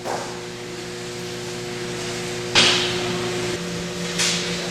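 Steady machinery hum made of several even tones, broken by two short bursts of hiss about two and a half and four seconds in.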